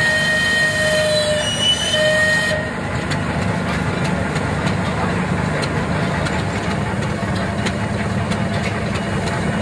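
Steam road roller's whistle blowing twice in the first two and a half seconds, followed by the roller's steam engine running steadily.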